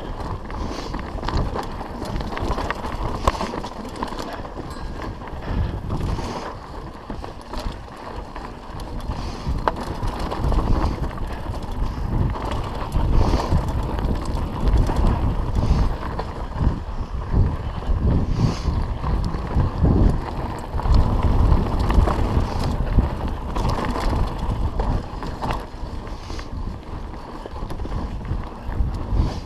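Mountain bike riding fast down a rough, rocky dirt singletrack: tyres crunching over stones and leaves and the bike clattering over bumps, under a constant rush of wind on the camera microphone. It grows louder from about ten seconds in.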